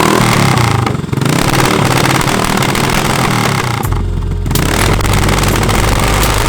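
Motorcycle engine running loudly and revving, its low note deepening and steadying about four seconds in.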